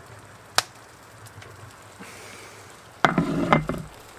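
A cooking utensil knocking against the cooking dish while food is added: one sharp knock, then a quick cluster of ringing knocks about three seconds in, over food sizzling faintly.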